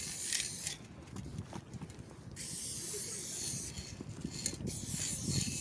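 Aerosol spray paint can hissing in long spurts with short breaks as a graffiti tag is sprayed.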